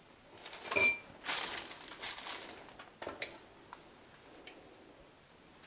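A single ringing clink of kitchenware about a second in, then about a second of crinkling as a plastic piping bag of batter is picked up and handled, and a light click near the three-second mark.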